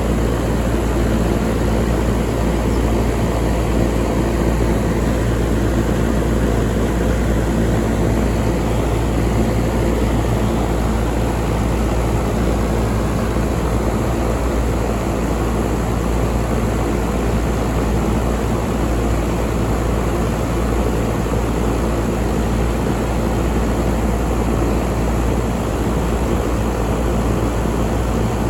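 York 5-ton air conditioner running steadily: an even rushing noise over a low hum.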